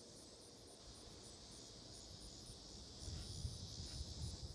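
Insects chirping: an even, high-pitched pulse about five times a second over a steady high buzz of insect song. A low rumble comes in about three seconds in.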